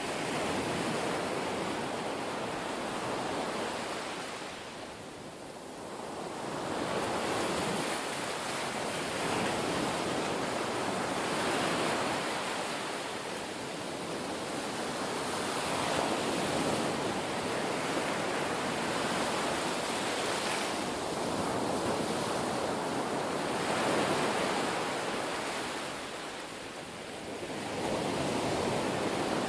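Ocean surf: a rushing wash of waves that swells and eases every few seconds, dipping quieter a few seconds in and again near the end.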